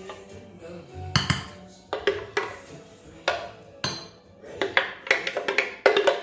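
Kitchen utensil knocking and scraping against a blender jar while clearing out the last of a puree: a series of sharp clinks, roughly one a second.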